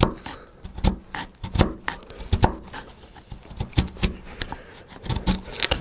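Bench chisel paring a hardwood dovetail pin by hand pressure: a run of short, crisp cuts and scrapes at an irregular pace, several a second at times.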